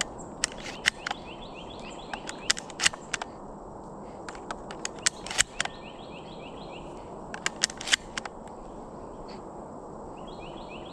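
Sharp clicks and snaps in small clusters every couple of seconds, over steady outdoor background noise. A short run of high chirps comes three times.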